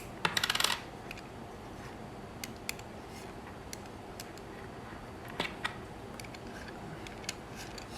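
Handling of a Pentax K1000 film camera body: a short run of small clicks and scraping shortly after the start, then a few scattered light clicks and taps, as the battery compartment on the base is worked open.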